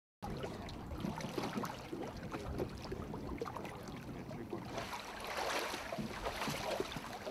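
Water splashing and sloshing with scattered small knocks, busier for a stretch about five seconds in.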